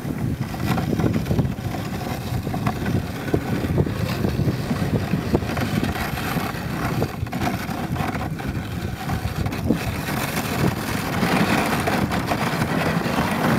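A dog sled running over a packed snow trail: a steady, rough rumbling of the runners on snow, with wind buffeting the microphone.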